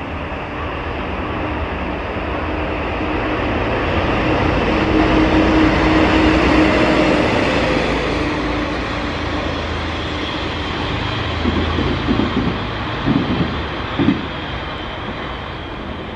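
JNR-type DD51 diesel-hydraulic locomotive, with its twin V12 diesel engines, passing through a station hauling flat wagons: the engine drone and wheel rumble grow to a peak as it goes by about six seconds in, then fade. Near the end the following wagons give a few sharp clacks of wheels over rail joints.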